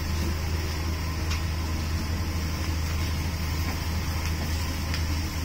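Commercial gas wok burner running steadily on high flame under a carbon-steel wok of vegetables: an even rushing noise over a low hum.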